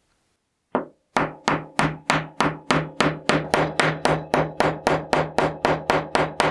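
Hammer striking metal in a quick, even series of about eighteen blows, roughly three a second, each leaving a short ringing tone at the same pitch; the blows begin about a second in and stop abruptly.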